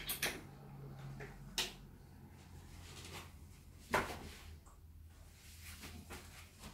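Handling knocks and clicks from an electric guitar being lifted and strapped on, with the loudest knock about four seconds in, over a steady low hum.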